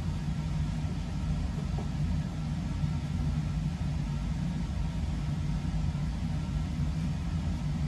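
A steady, low rumbling hum of background machinery with no other distinct sounds.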